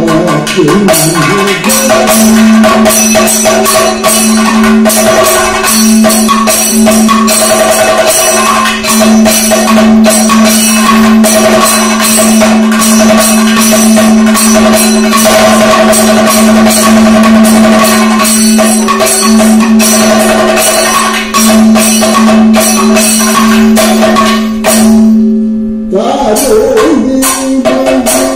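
Kathakali percussion accompaniment: rapid drumming on the chenda and maddalam with cymbals, over a steady drone. The drumming breaks off briefly near the end.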